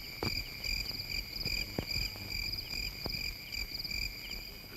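Crickets chirping in a steady, high, pulsing trill, with a few faint ticks.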